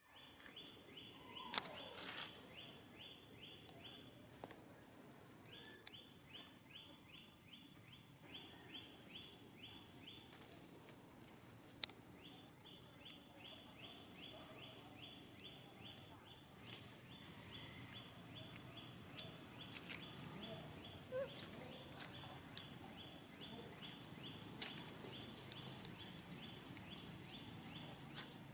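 Faint insect chorus: a rapid pulsed chirping at about four to five pulses a second in runs of several seconds, over a higher hiss that comes and goes. A few sharp clicks stand out.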